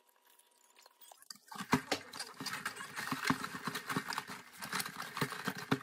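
Crinkly paper rustling with many sharp clicks, starting about a second and a half in and stopping suddenly near the end: a burger's paper wrapper being opened, and ice in a plastic cup of iced coffee being stirred with a straw.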